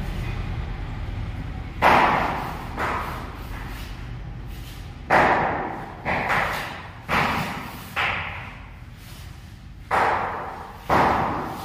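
Mason's steel trowel scooping mortar from a pan and dropping it onto a concrete floor: about eight sudden scrapes and thuds, each dying away quickly, mostly about a second apart.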